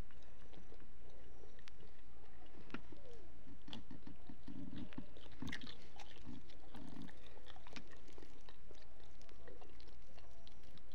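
A person chewing food close to the microphone, with many small wet mouth clicks that come thickest a few seconds in.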